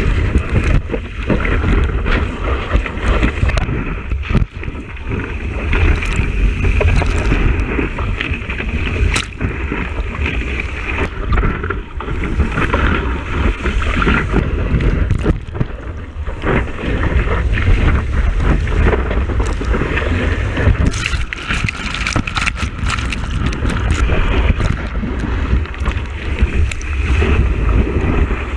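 Rushing water and wind buffeting a camera mounted on the nose of a surfboard riding a wave, a loud continuous rumble with frequent small knocks.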